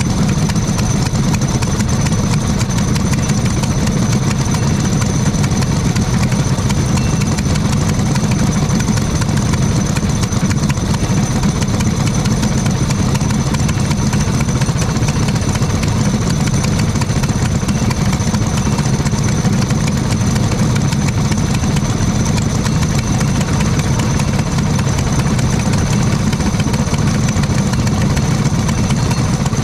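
Racing kart engines idling steadily together on the grid, with no revving.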